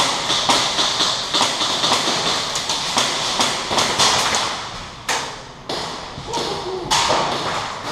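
Airsoft guns firing in a quick, irregular string of sharp pops, a few a second, over a steady hiss. The pops thin out after about five seconds, leaving a couple of isolated cracks.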